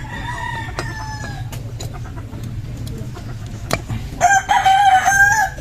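A rooster crowing twice. The first crow is fainter and falls slightly in pitch. The second, louder crow comes about four seconds in and lasts just over a second. Under it runs a steady low hum, with a few sharp clicks.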